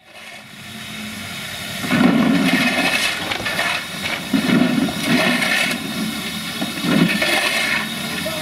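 Lumps of coal being shovelled by hand off a heap and tipped into metal buckets: repeated, irregular scraping and rattling clatters, loud from about two seconds in.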